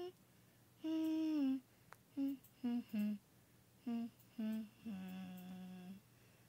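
A person humming a short tune with no words: a long note that dips at its end, several short quick notes, then a final lower note held for about a second.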